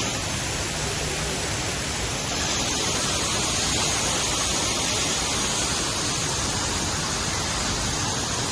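Steady, even hiss of outdoor noise with no distinct events. It grows a little brighter and sharper about two seconds in.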